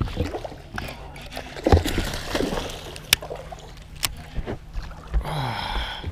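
Hooked bass thrashing and splashing at the surface beside a bass boat during the fight, with knocks on the hull and the steady low hum of the electric trolling motor.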